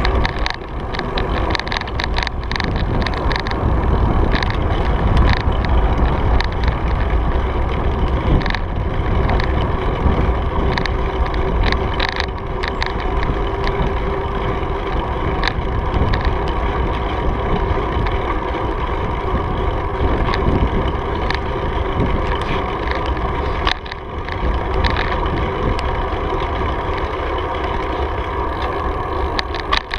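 Wind buffeting a bicycle-mounted camera's microphone while riding, with tyre noise from the pavement and frequent short clicks and rattles.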